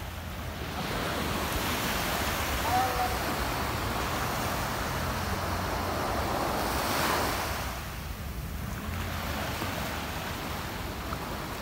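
Small waves breaking and washing up a sandy shore, a steady rush that swells to a peak about seven seconds in and then drops away as the wave recedes, with wind rumbling on the microphone.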